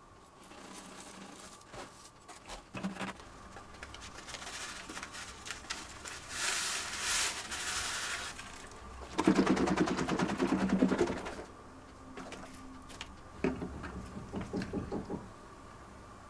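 Workbench handling sounds of mixing an electrolyte solution: a spoon scooping white powder onto paper, a hiss as the powder runs through a paper funnel into a plastic water jug, and a louder stretch of rattling and sloshing about halfway through as the jug is handled. Scattered small clicks follow.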